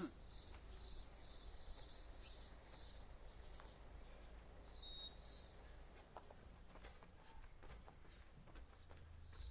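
A bird calling faintly in a quick run of short high buzzy notes, about three a second, then two more midway and one near the end, over a low rumble.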